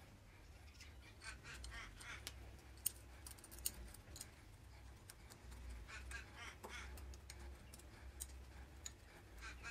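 Faint clicks and ticks of small steel bolts being handled and set into a quick-change tool post's locking ring, with two sharper clicks about three and three and a half seconds in.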